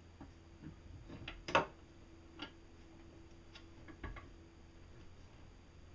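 Scattered light clicks and taps as the plastic top housing of an electric trolling-style outboard is fitted and clamped onto its shaft by hand, the loudest about one and a half seconds in. A faint steady hum sits underneath.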